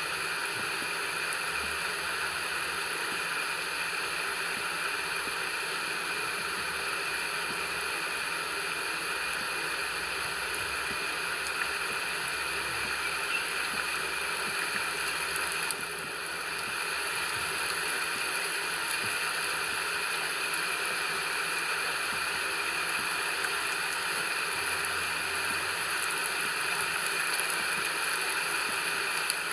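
Steady rain, an even hiss that dips briefly about halfway through.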